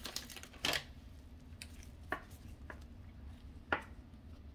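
Stack of Panini Absolute football cards being flipped through in gloved hands: about half a dozen faint, irregular clicks and taps as cards are slid off the stack.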